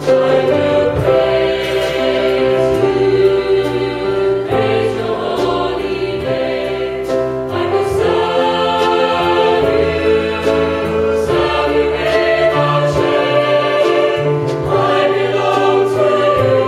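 Mixed youth choir of young men and women singing a worship song together, with steady low notes underneath.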